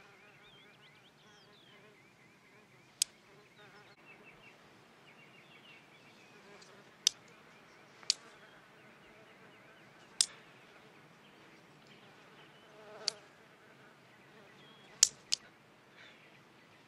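A housefly buzzing faintly, broken by several sharp clicks of wooden chopsticks snapping shut at it.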